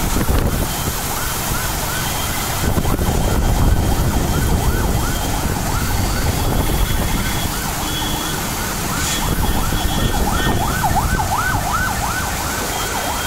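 Strong wind buffeting the microphone over heavy rain, with a siren in the distance wailing in a fast up-and-down warble, about three sweeps a second. The siren grows louder near the end.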